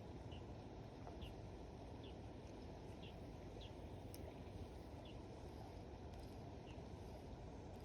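Faint outdoor ambience: a steady low hiss with a small bird giving short, high chirps at irregular intervals about once a second.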